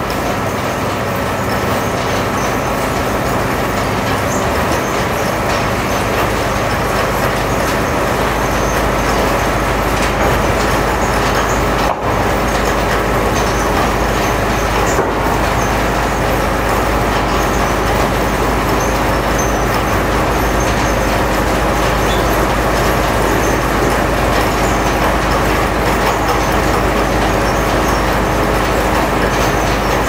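Wood-Mizer sawmill and its support machinery running steadily, with a deep low hum joining about eight seconds in and a momentary break near the middle.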